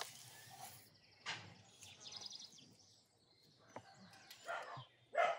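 Quiet outdoor background with a short run of quick high bird chirps about two seconds in, and a few faint knocks.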